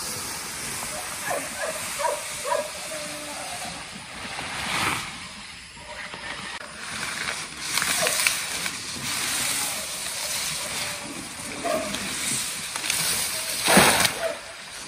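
Rustling of leafy vegetation as cut stalks are carried through tall weeds, over a steady high hiss; near the end a loud splash as a bundle of cut greenery is thrown onto a pond.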